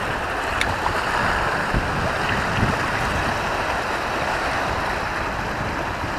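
Sea waves washing against the shore in a steady rush, with wind buffeting the microphone.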